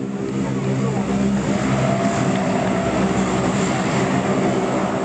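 Four-engine turboprop C-130 Hercules passing close by: its propellers and engines give a steady drone of several layered tones over a rushing noise. It grows louder over the first second or so, then holds.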